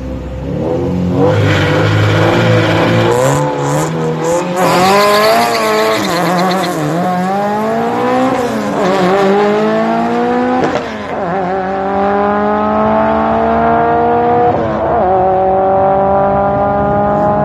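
A Honda F20B-swapped 1994 Civic coupe making a full-throttle drag strip pass. The four-cylinder engine's pitch climbs and then drops sharply at each upshift, several times over the run.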